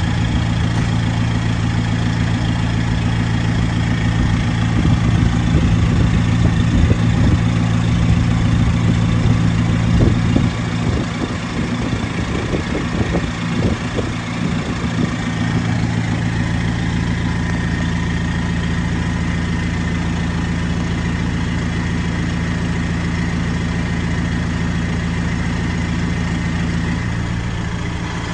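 A vehicle engine idling steadily, with an uneven low rumble over it for a stretch in the middle.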